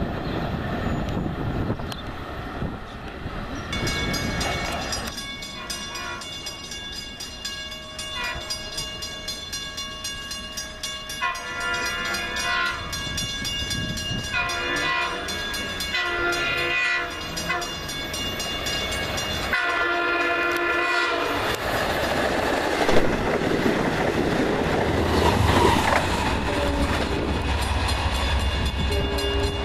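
Long Island Rail Road diesel passenger train sounding its air horn in a series of long and short blasts for a grade crossing, with crossing bells ringing steadily. Near the end a deep rumble builds as the diesel locomotive runs past.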